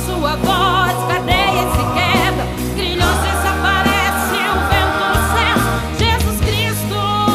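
Gospel song: a woman sings wavering, wordless vocal runs with heavy vibrato over musical accompaniment with a steady bass.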